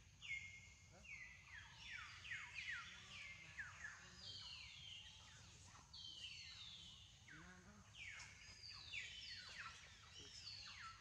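Faint chorus of animal calls: many overlapping high whistles, each sliding down in pitch, repeating throughout.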